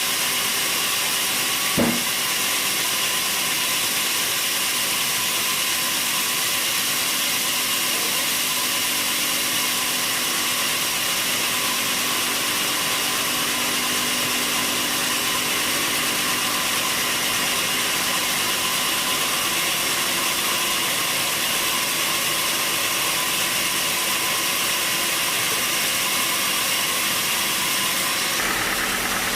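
Sawmill machinery running steadily with a loud, even mechanical noise, and a single knock about two seconds in.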